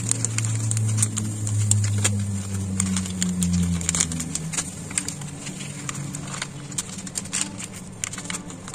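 Scattered light clicks and taps of kitchen items being handled, over a low steady hum that fades after about four seconds.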